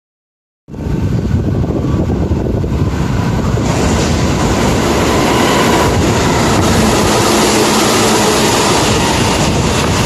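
Tobu 350-series limited express electric train passing through a station at speed without stopping: a loud, steady rush of wheel and running noise. It starts abruptly after a moment of silence and grows brighter and louder about three and a half seconds in as the cars sweep past.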